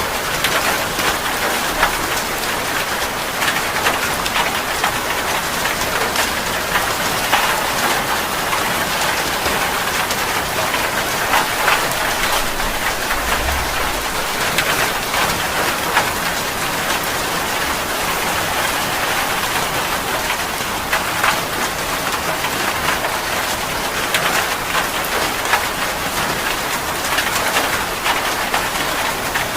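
Steady heavy rain, a dense hiss with many distinct drops pattering on a surface. A brief low rumble comes about halfway through.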